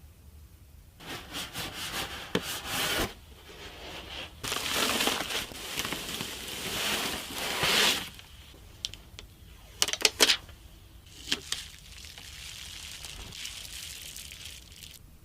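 Hands handling computer parts and packaging: rubbing and scraping in two longer passages, then a few sharp clicks about ten and eleven seconds in.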